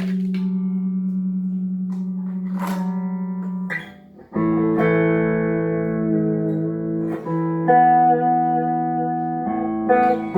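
Tagima TW61 guitar being played in a sound test after a setup service. A low note rings for about four seconds, then, after a brief pause, strummed chords are left to ring and change twice.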